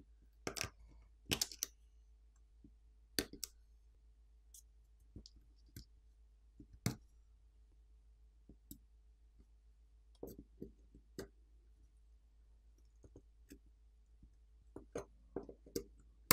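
Sparse, irregular small clicks and taps of a plastic pry tool and a metal pick against a smartphone's internal parts as the flex-cable and coaxial-cable connectors on the subboard are pried loose.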